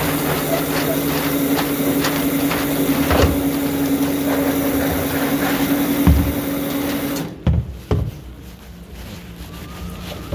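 Steady mechanical hum with a constant low tone under loud noise, broken by occasional knocks. It cuts off suddenly about seven seconds in, and two sharp thumps follow.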